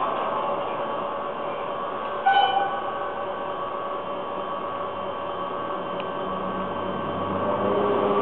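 N gauge model trains running on a layout: a steady whir of small motors and wheels on track. A brief pitched note comes about two seconds in, and a lower rumble builds near the end as a model locomotive draws near.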